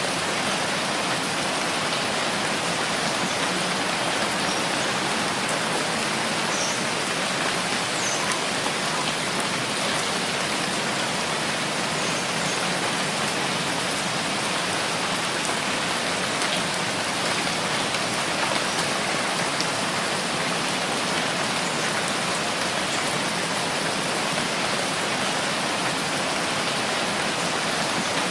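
Steady rainfall, an even unbroken hiss of drops on surfaces.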